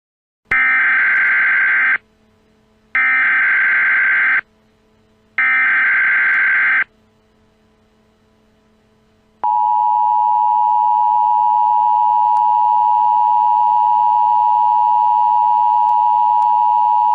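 Emergency Alert System tones: three short, identical bursts of data tones (the SAME header), each about a second and a half long, then after a pause the steady two-tone attention signal, held for about eight seconds before it cuts off. The sequence signals that an emergency alert message is about to follow.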